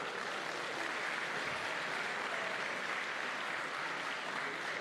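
Audience applauding, a steady even clapping from a crowd.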